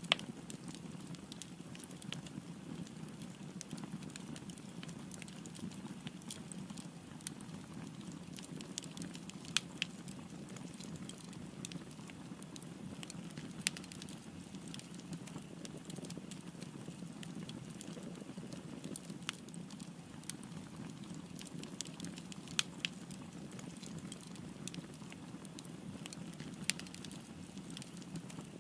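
Wood fire burning with a steady low rush and frequent small crackles. A few louder pops come at irregular intervals, the sharpest right at the start and others about 10, 14, 23 and 27 seconds in.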